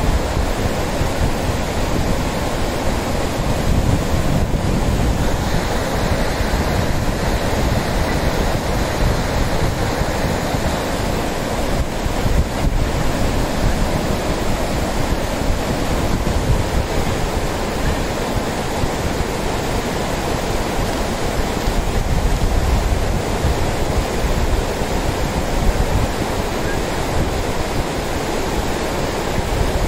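Lidder River rushing over a shallow, stony bed in white-water rapids: a steady, unbroken rush of water.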